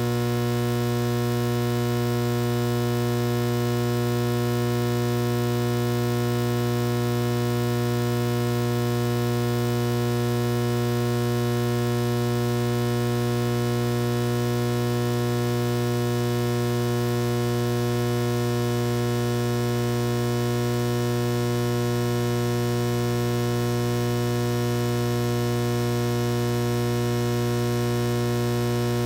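Steady electrical mains hum, a low buzz with many overtones, unchanging in pitch and level.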